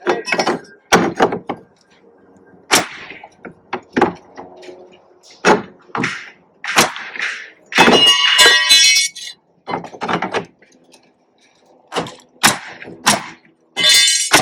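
Work noise from fastening wooden trim on a shed door: a dozen or so irregular sharp knocks and clanks, some ringing briefly, with a longer metallic clatter about eight seconds in.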